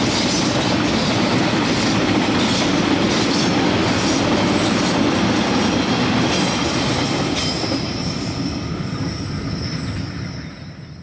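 Freight train wagons rolling past, wheels clicking over the rail joints with a thin high squeal, fading away steadily after about seven seconds as the last wagons pass.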